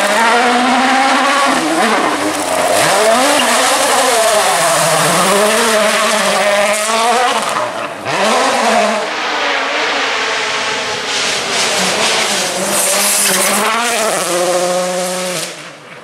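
Rally cars at full throttle on a gravel stage, engine revs climbing and dropping again and again through gear changes and lifts, with the hiss of tyres sliding and spraying gravel. The sound dips briefly about halfway, where one car's pass gives way to the next.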